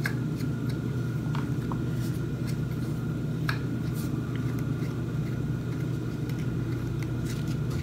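Washing machine motor running with a steady low hum that cuts off suddenly near the end. A few faint clicks from a plastic collar being screwed onto a dumbbell handle.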